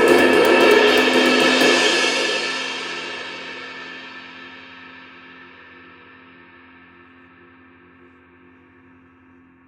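Early-1950s Turkish-made 22-inch Zildjian ride cymbal played with a fast run of strokes that swells into a loud, shimmering wash. The strokes stop about two seconds in, and the cymbal rings on, fading slowly with a lingering hum of low overtones.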